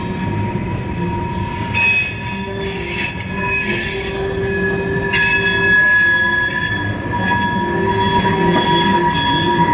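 Freight train of tank cars rolling past, its steel wheels squealing: several high-pitched squeal tones that come and go over the low rumble of the wheels, growing louder about two seconds in and again about five seconds in.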